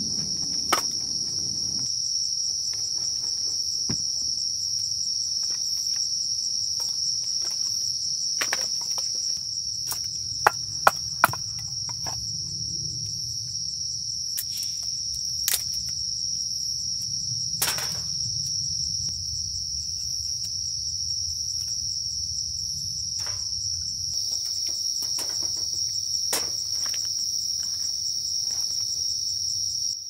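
Crickets trilling steadily in one continuous high chorus. Now and then the short knock or click of split firewood and kindling being handled and stacked, with three quick sharp clicks about ten seconds in.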